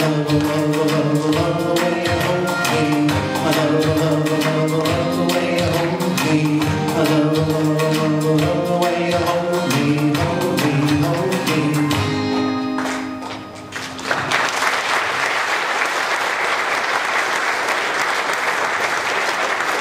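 The end of a song: music with a steady beat and sustained pitched notes, the last note fading out about thirteen seconds in. An audience then breaks into applause that carries on to the end.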